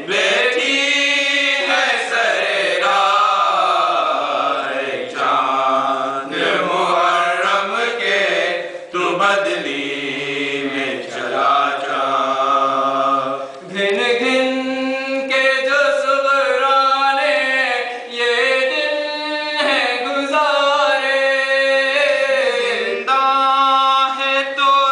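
Male voices chanting an Urdu noha, a Muharram lament, unaccompanied by instruments. About halfway through, the melody moves to longer, steadier held notes.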